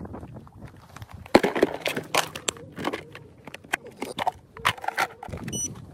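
Irregular clicks, knocks and crunches as the plastic hull of an RC racing speedboat is set down and handled on loose gravel.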